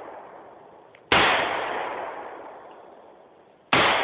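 Two AR-15 rifle shots about two and a half seconds apart, each a sharp crack that trails off in a long echo; the tail of an earlier shot is still fading at the start.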